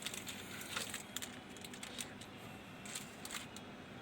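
Scattered light clicks and small rattles of things being handled, over a faint steady background hum.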